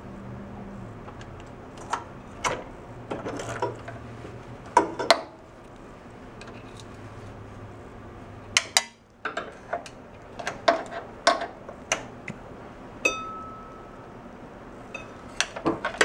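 Scattered metal clinks and clicks of a hex bit on an extension handle being fitted and worked against bolts on the engine, with one brief ringing clink near the end.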